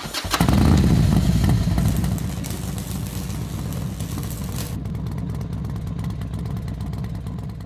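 Suzuki GS750 motorcycle engine running, louder for the first two seconds or so, then running steadily. It cuts off suddenly at the end.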